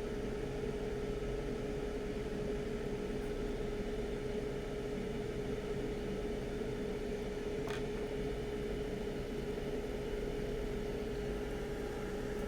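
Steady machine hum, like a bench fan or extractor, with one constant mid-pitched tone running through it; a faint tick sounds about eight seconds in.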